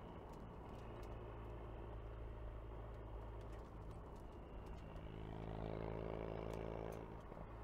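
Ford Focus RS driving on a wet road, heard from inside the cabin: a steady engine hum over tyre and road noise. The engine note grows louder and brighter a little past five seconds in, under acceleration, then eases off near the end.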